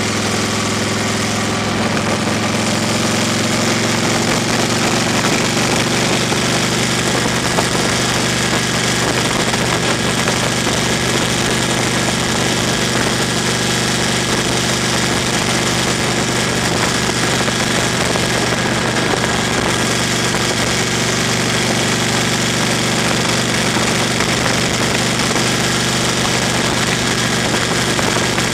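A vehicle driving on a gravel road, heard from inside: a steady engine hum under an even rush of tyre and road noise, unchanging throughout.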